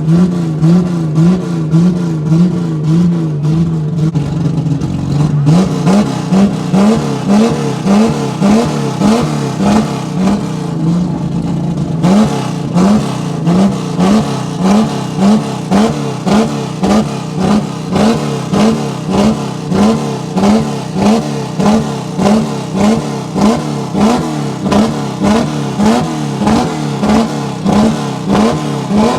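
Chevrolet Opala engine revved in quick, evenly repeated throttle blips. Each blip is a short rising rev. They come slightly faster for the first few seconds, then settle to about one a second, with added hiss from about halfway.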